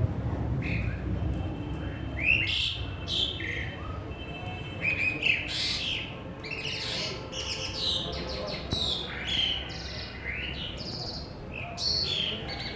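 Asian pied starling (pied myna) singing: a run of short whistled, chirping notes that rise and fall in pitch, picking up about two seconds in, over a low steady background rumble.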